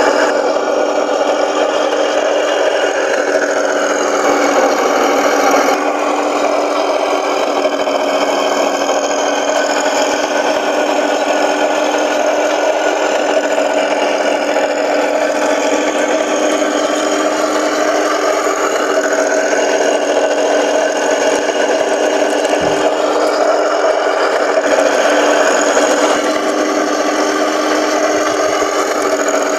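Simulated tank engine sound from the IBU 3 sound unit's speaker in a 1:16 Heng Long RC tank, running steadily with its pitch rising and falling as the model drives. The whine of the small electric drive and the rattle of the tracks on paving run under it, with a short knock about two-thirds of the way through.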